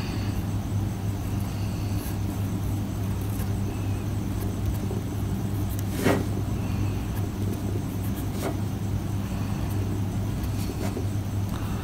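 A steady low hum fills the background, with soft scratches of a fountain pen's stub nib writing on paper. Three faint taps come about six, eight and a half, and eleven seconds in.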